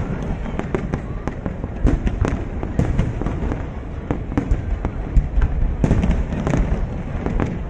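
Aerial fireworks shells bursting in quick succession: a dense string of sharp bangs and crackles, several a second, over a steady low rumble.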